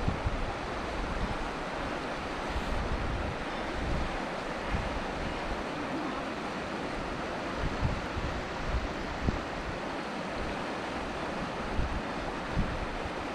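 Wind blowing across open water, with a steady rush and irregular low gusts buffeting the microphone.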